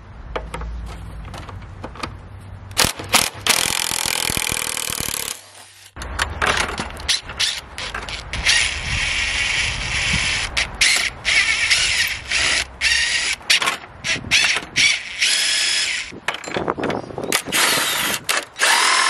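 Cordless impact wrench with a socket spinning rusty nuts off the carriage bolts of a wooden gate's strap hinges. It hammers in several runs of rapid impacts, with a short break about five and a half seconds in.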